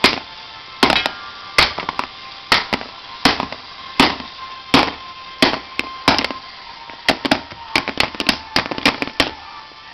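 A wooden drumstick repeatedly whacking a mobile phone, sharp cracks about once every three-quarters of a second, speeding up into quick flurries of hits over the last three seconds.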